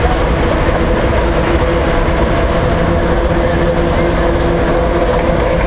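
Electric locomotive hauling a train as it approaches along the track, giving a loud, steady hum of several held tones over a low rumble.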